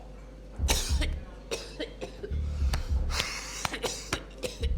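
A man coughing and choking in two harsh fits, about a second in and again a little past the middle, with a microchip he has swallowed lodged in his throat.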